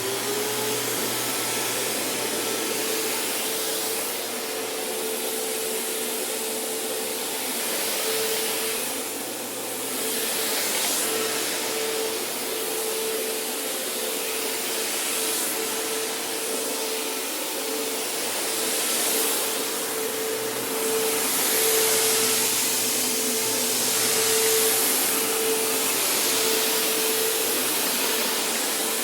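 Vacuum cleaner running steadily: a constant motor whine under a loud rush of air. The air noise swells and eases every few seconds as the cleaner is used.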